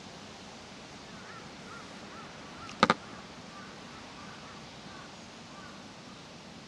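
Suburban park ambience: a steady hiss of background noise with a faint run of short bird calls, and a sharp double click just under three seconds in, the loudest sound.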